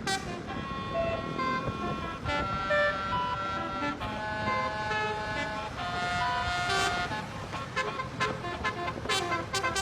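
Basuri 'telolet' multi-tone horn playing a melody of held notes at shifting pitches, changing to a quick stutter of short repeated notes about seven seconds in, over a low rumble.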